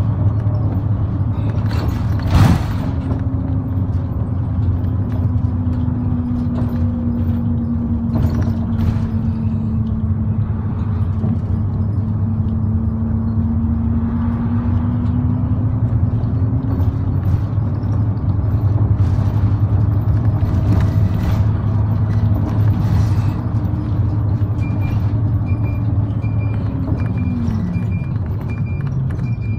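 Route bus heard from inside the cabin while under way: steady engine and road rumble with a drivetrain whine. The whine falls away in pitch near the end as the bus slows. A couple of short knocks or rattles come from the cabin.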